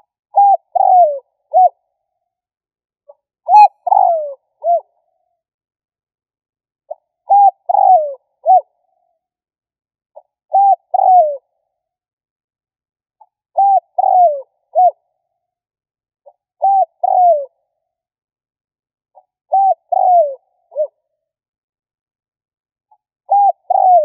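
Spotted dove cooing: short phrases of two or three coos, each coo falling in pitch, repeated about every three seconds, eight times. It is a caged decoy bird's song, used to draw wild doves.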